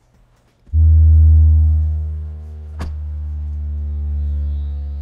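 Kicker CVX subwoofer in a prefab ported box playing a loud, deep bass test tone during an SPL test. The tone starts under a second in and stops abruptly near the end, with one sharp click a little under three seconds in.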